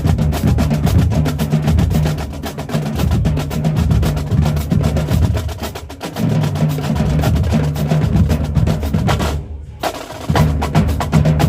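Marching drumline playing a fast cadence: rapid snare strikes over pitched bass drums. The drumming breaks off for about half a second near the end, then comes back in.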